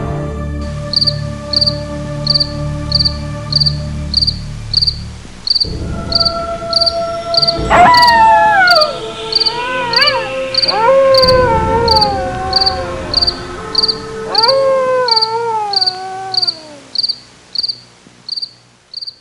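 Cricket sound effect chirping steadily, about two chirps a second, under a dark music drone that fades out in the first few seconds. From about eight seconds in come several long howls, each rising quickly and then sliding down in pitch; the first is the loudest.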